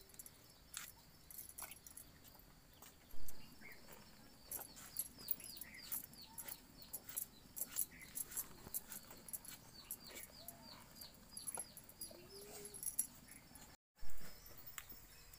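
Runner beans being cut on a fixed blade held by the foot: a run of small crisp clicks and snaps, with repeated short falling bird chirps, about two a second, through the middle. Two loud knocks, one about three seconds in and one near the end.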